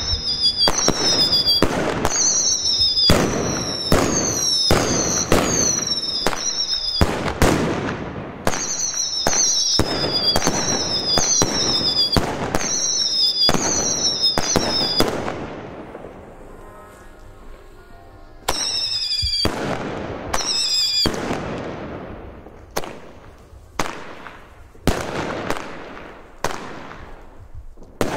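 Zena 'Ugly Joe' whistling salute cake firing: a rapid string of shots, each a whistle falling in pitch and ending in a sharp bang. The shots stop about fifteen seconds in. After a pause of about three seconds, whistles and bangs start again and thin out to single bangs near the end.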